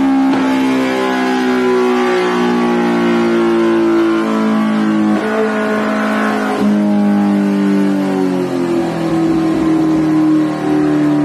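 Kawasaki Ninja H2R's supercharged inline-four running hard on a rear-wheel dyno. Its pitch climbs steadily, then drops abruptly about two, five and six and a half seconds in before climbing again.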